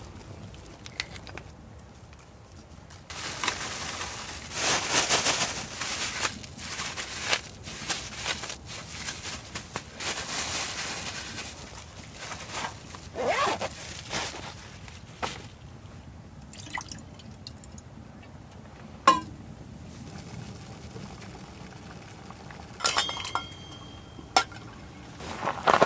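Liquid being poured and dripping in stretches, with scattered clinks and knocks of cookware and utensils.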